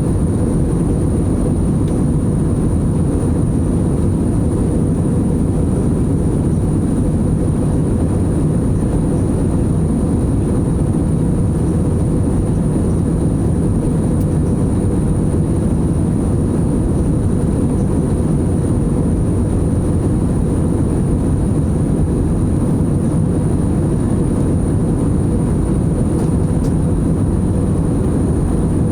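Steady airliner cabin noise in flight: an even, deep rush that does not change, with a faint high-pitched whine running under it.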